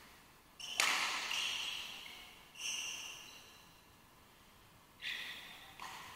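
Four sharp strikes of badminton rackets hitting a shuttlecock during a rally, each with a high, ringing ping that echoes in the hall. The loudest comes about a second in, and the last two are close together near the end.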